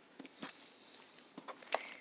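Slime being squished and pulled by hand, giving a few small sticky clicks and pops, the loudest near the end.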